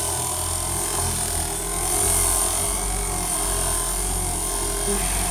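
ProElite electric car polisher with a cloth bonnet running steadily, a continuous motor hum while it spreads wax on the car's paint.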